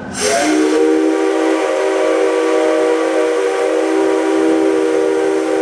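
Steam locomotive C57 135's chime whistle, five pipes of different lengths and sizes built into one, sounded in a single long blast. It opens with a rush of hiss and slides up into pitch. It then holds as a steady chord of several tones.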